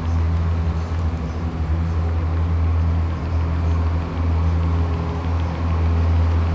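A motor running steadily, a deep, even hum.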